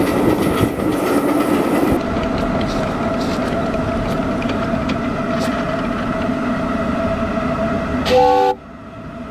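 A 7½-inch gauge live steam train running on its track, heard from a riding car: a steady running noise, with a short whistle toot about eight seconds in. The sound drops off suddenly just after the toot.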